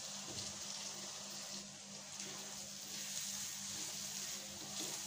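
Chopped tomatoes sizzling in hot oil and fried masala in a kadai: a steady hiss.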